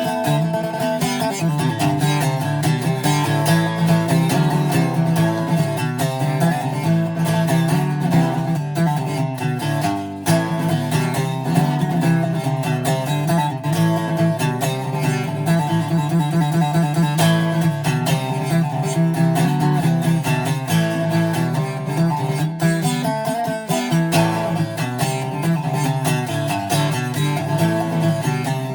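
Greco D-70 acoustic steel-string guitar being played, a continuous run of plucked and strummed notes over a steady bass.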